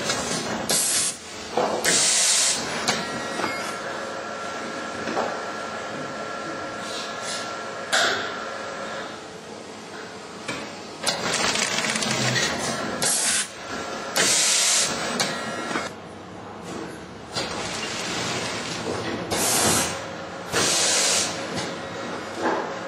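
Automatic bagging machine running with a steady mechanical hum. Loud short blasts of compressed-air hiss break in every few seconds, some in quick pairs, as its pneumatic actuators cycle.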